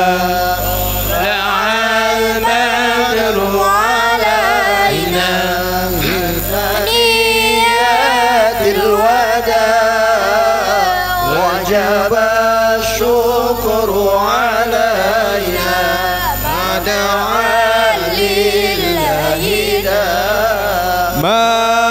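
A group of men singing an Arabic devotional salawat in praise of the Prophet Muhammad, the lead voices amplified through handheld microphones, drawing out long, wavering notes without a pause.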